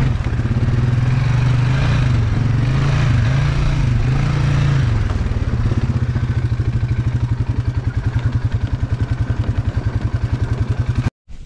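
Quad (ATV) engine running as it is ridden along a rough gravel trail, its pitch rising and falling over the first few seconds, then holding steadier with a fast, even pulsing. The sound cuts off abruptly near the end.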